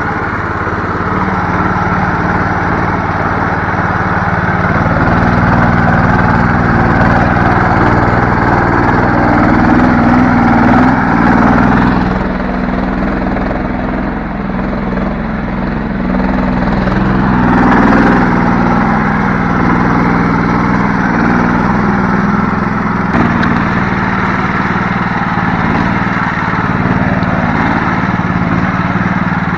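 A karakat all-terrain vehicle's small engine running steadily under way. Its note dips about twelve seconds in and swells again around eighteen seconds, as the throttle changes.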